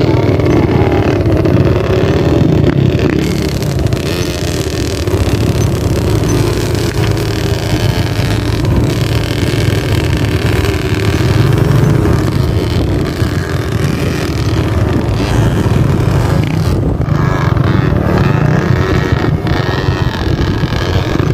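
Small kids' dirt bike engines running close by, the pitch wavering up and down with the throttle.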